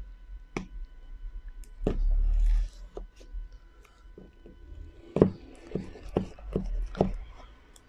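A pointed tool tapping and scraping at the plastic shrink-wrap on a smartphone box to break the film: scattered sharp clicks, with a quicker run of them between about five and seven seconds in, and a low handling bump about two seconds in.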